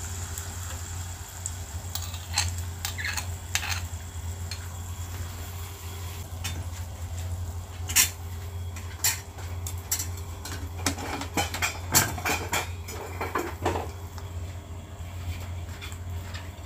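Batter frying in hot oil in a pan: sizzling with many sharp pops and clicks, the loudest about 8 and 12 seconds in, over a steady low hum.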